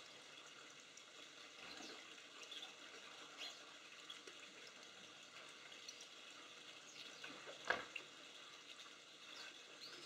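Light rain falling: a faint steady hiss with scattered soft ticks, and one sharp knock about three-quarters of the way through.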